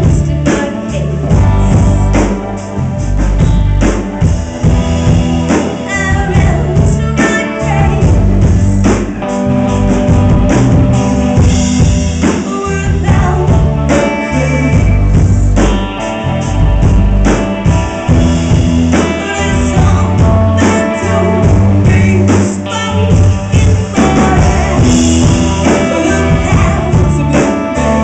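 Live rock band playing a song: a woman singing lead over electric guitar, bass guitar and a drum kit with a steady beat.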